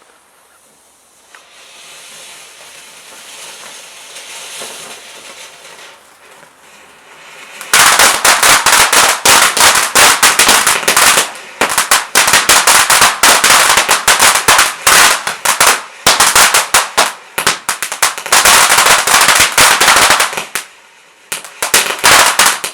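A consumer garden firework from a Standard Fireworks Visage selection box: a soft hiss grows for several seconds, then about eight seconds in it breaks into a loud, dense run of rapid crackling pops with short lulls, which stops abruptly near the end.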